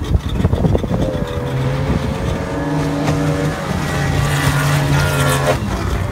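Outboard motor of a small racing speedboat running at high speed with a steady engine note, which cuts off suddenly near the end. A few sharp knocks and splashing come in the first second as the hull throws spray.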